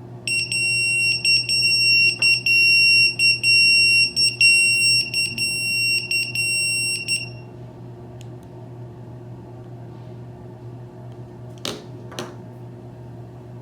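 POCSAG alphanumeric pager sounding its incoming-call alert: a high-pitched electronic beeping, chopped into rapid short pulses, for about seven seconds, signalling an emergency call received from a JD-180 pull-cord transmitter. Two short clicks follow near the end.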